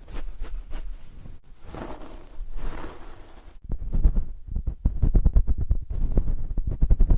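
Close-miked ASMR trigger sounds. Soft rustling swells are followed, about halfway through, by a louder rapid run of crackling, scratchy strokes with dull thumps right on the microphone.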